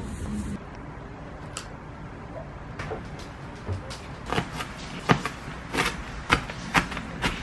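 Chef's knife chopping green onions on a plastic cutting board, sharp knocks about two a second starting a little past halfway. Before that, a few scattered light taps over quiet room tone, after a brief burst of street noise at the very start.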